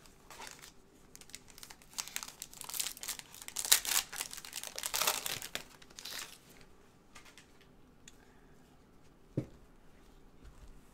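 Foil trading-card pack being torn open and crinkled in gloved hands: a run of crackling, tearing bursts over about four seconds, then quieter handling with a single light knock near the end.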